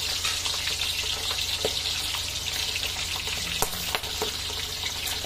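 Boiled pork belly (liempo) deep-frying in hot oil in an aluminium wok: a steady sizzle, with a few short clicks as the tongs touch the meat and the pan.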